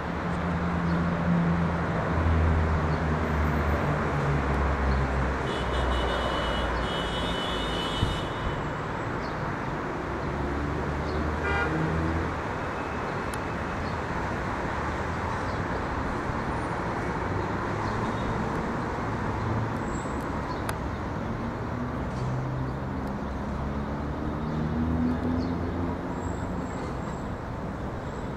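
Boeing 787 jet engines on approach overhead: a steady, broad jet roar.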